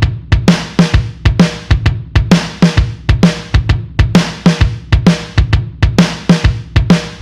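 Background music with a steady, driving drum beat, about three to four hits a second.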